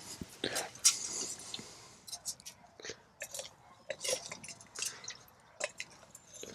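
Kindling and a Kelly kettle being handled: irregular small clicks, crackles and scrapes, busiest in the first second and a half, then sparser.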